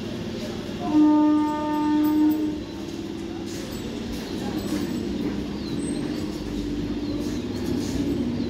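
Suburban EMU local train sounds one horn blast about a second in, lasting about a second and a half. It then runs with a steady rumble of wheels and motors that grows slightly louder as it pulls out of the station.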